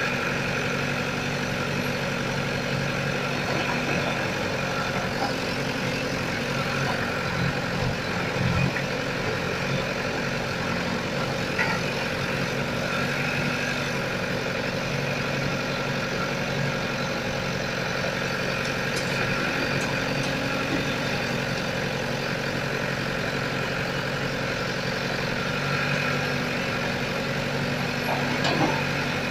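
Diesel engine of a JCB backhoe loader running steadily while the backhoe digs rubble, with a few knocks about a third of the way in and again near the end.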